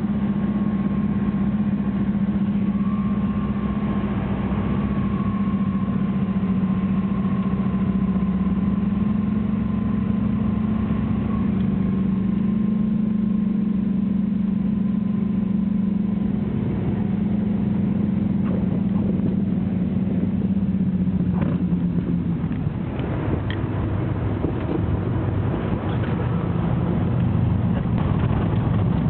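Steady engine drone heard from inside a small private aircraft's cabin, with a constant low hum and a thin higher whine. The drone drops and changes about two-thirds of the way through.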